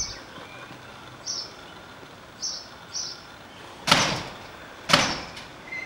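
Two loud bangs about a second apart near the end, a door in the garage being banged. Faint short high chirps come before them.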